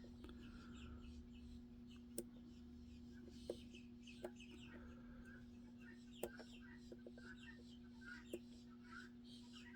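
Near-silent lock picking on a Magnum Everest padlock: a few faint, sharp clicks of the pick and pins over a steady low hum, with faint short chirps in the background.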